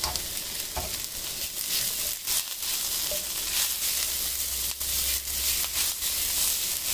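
Rice and diced green and red peppers sizzling as they are stir-fried in a wok, with the metal ladle scraping and knocking against the pan several times as it stirs.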